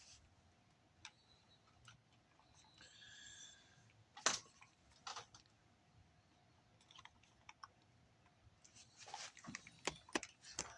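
Faint, scattered clicks and taps of hands handling small plastic objects, with one sharper click about four seconds in and a quicker run of clicks near the end.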